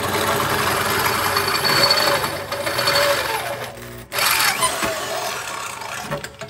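Corded Craftsman electric drill boring through the thin steel rear plate of a riding lawn tractor, the motor running under load as the bit cuts the metal. It stops for a split second about four seconds in, then starts again.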